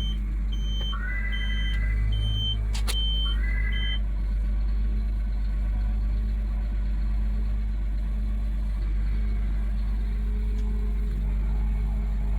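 Tractor engine idling with a steady low hum. For the first four seconds, an electronic warning sounds over it: a short high beep repeating about twice a second, with a rising chirp every couple of seconds. Both stop about four seconds in.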